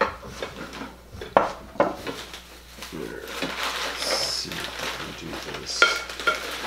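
Ceramic and glass pieces knocking and clinking against each other and the table as they are handled and set down. Several sharp knocks, then near the end two short clinks that ring.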